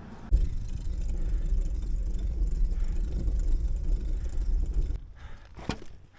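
Wind rumbling on the microphone while riding a bicycle, starting suddenly and dropping away about five seconds in, followed by a sharp click near the end.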